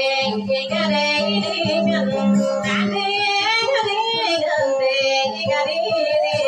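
A woman singing dayunday, the Maguindanaon sung verse form, in a high, ornamented, wavering melody through a microphone and PA, over plucked string accompaniment.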